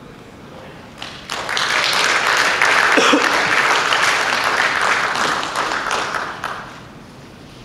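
Audience applauding: the clapping starts about a second in, swells quickly, holds for about five seconds and dies away near the end.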